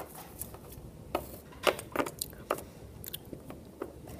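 Irregular small clicks and rustles of handling: a folded paper note and plastic toy cat figures being picked up and set down on a wooden floor.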